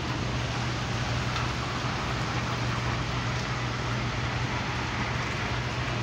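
Heavy rain pouring down on the pavement and the walkway's canopy, an unbroken hiss, with a steady low hum underneath.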